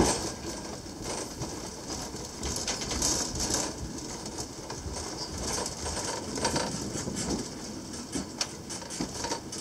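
Gelmerbahn funicular car running down its steep track: a steady clattering of the car and its wheels on the rails, with creaks and many small clicks. A sharp knock comes right at the start.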